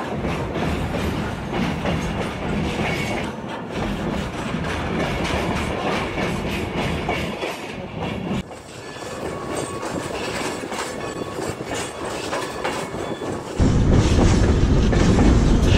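A moving train's wheels rolling on the rails, with a clickety-clack over the track. Near the end a much louder low rumble of wind on the microphone comes in.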